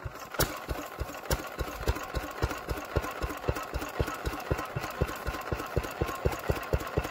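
Small vintage air-cooled single-cylinder stationary engine running steadily just after being hand-started, firing in an even beat of about five thumps a second.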